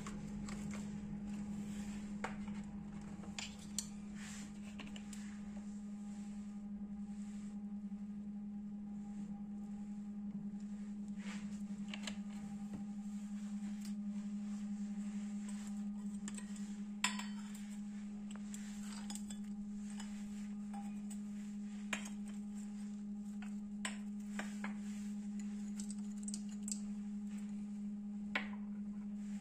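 Light clinks and taps of a spoon against a steel mixing bowl as spices and chopped herbs are added, a handful of separate strikes, over a steady low hum.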